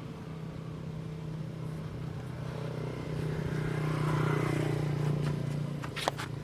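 A motor vehicle's engine running with a steady low hum that grows louder in the middle and eases off again, as if passing close by, with a few sharp clicks near the end.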